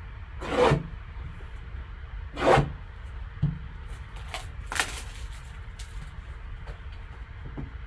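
Sealed trading card box being opened and handled: cardboard and wrapping scraping and rustling in three short swishes, with light taps and clicks between them.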